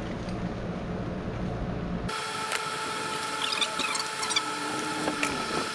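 Potting soil tipped from a plastic bucket into a planter, rustling and scraping, after about two seconds of steady low hum; a steady high whine sits under the rustling.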